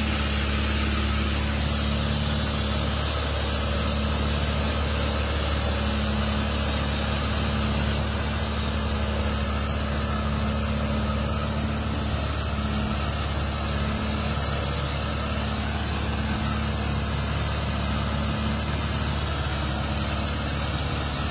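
A vehicle engine running steadily at a low, even speed, a continuous low hum with no revving, a little quieter from about a third of the way in.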